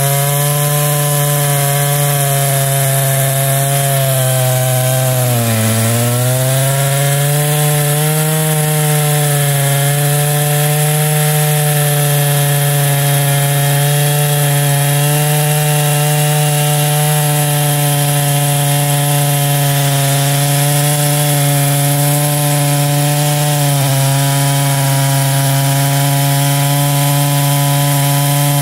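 Husqvarna two-stroke chainsaw running at full throttle, its chain cutting through a thick upright log round. The engine pitch sags briefly about five seconds in as the bar loads up, then recovers and holds steady.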